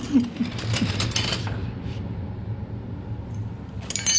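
Metal hand tools clinking and rattling against each other as they are rummaged through in search of a wrench. There is a cluster of clinks in the first second and a half and more near the end, over a steady low hum.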